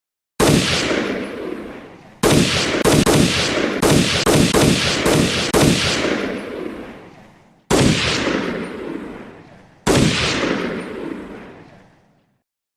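Action-film gunshot sound effects: a single shot with a long echoing tail, then a rapid string of about ten shots, then two more single shots a couple of seconds apart, each ringing out before the next.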